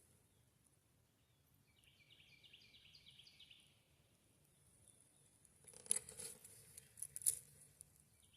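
Faint outdoor ambience: a bird gives a quick series of short falling chirps for about two seconds, then a few seconds later comes a cluster of rustling and sharp clicks, as of something being handled.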